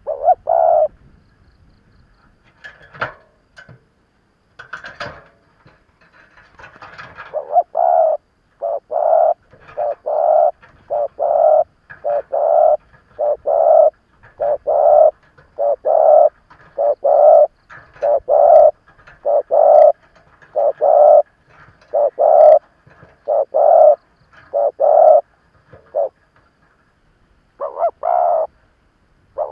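Spotted dove cooing: a long, regular series of low coo notes at about one a second, pausing briefly near the end before two more. It is the calling of a seasoned decoy dove, used to provoke wild doves into answering. A few faint, brief sharp sounds come in the first seconds.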